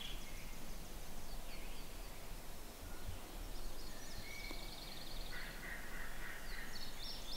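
A wild turkey gobbling at a distance, a rapid rattling call about five seconds in, among fast high trills of songbirds over steady outdoor background noise.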